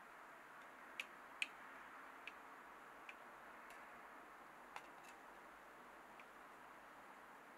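Near silence: a faint steady hiss with about five scattered, irregular clicks. The loudest two come close together at about one and one and a half seconds in.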